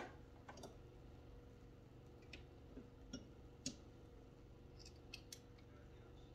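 Faint, irregular small clicks and ticks of hardware being worked by hand while a cellular shade's mounting bracket and screw are fitted at the top of a window frame. The clicks come singly and in pairs, about eight in all.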